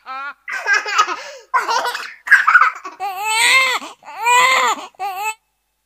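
Casio CT-X700 keyboard sound-effect tones of human voices, laughing and crying, played one after another. About six short vocal samples, each ending abruptly, with brief gaps between them.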